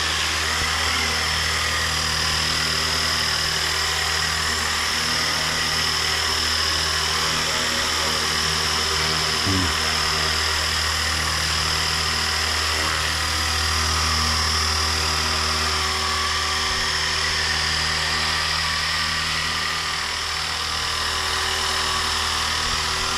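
Blade Eclipse 360 electric RC helicopter in flight, hovering and moving low: a steady low rotor hum with a high steady whine over it, swelling slightly about halfway through.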